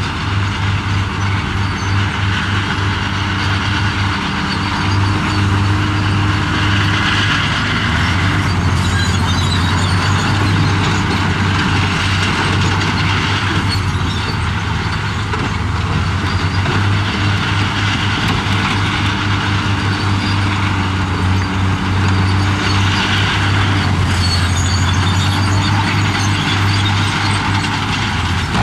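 Heavy diesel engine of earthmoving equipment running steadily under load. Its engine note dips twice, with patches of scraping hiss over the top.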